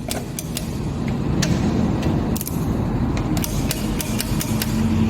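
Scattered light metallic clicks of engine parts and tools being handled, over a steady low mechanical rumble.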